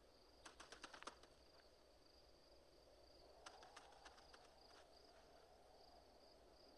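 Faint desert ambience with a steady, high insect chirring. Two short runs of light clicks and clatters, bones of a dry skeleton being knocked and shuffled by hand: one about half a second in, a longer one about three and a half seconds in.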